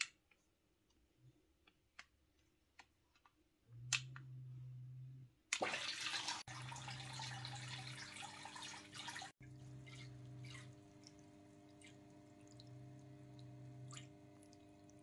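Switches on a power strip click a few times. A low hum starts, then the Waterbox Peninsula Mini aquarium's return pump comes on with about four seconds of rushing water. It settles into a steady pump hum with trickling and dripping water as the tank's circulation restarts.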